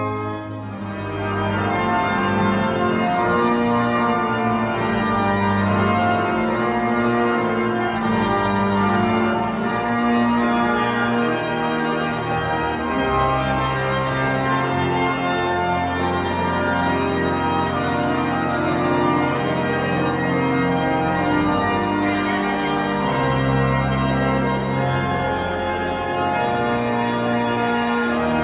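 Church organ playing: sustained full chords with a moving upper line over long held bass pedal notes.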